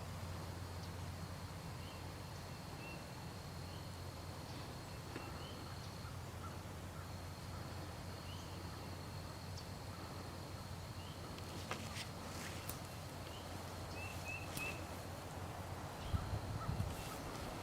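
Outdoor field ambience: scattered short bird chirps over a steady low rumble, with a few sharp clicks late on.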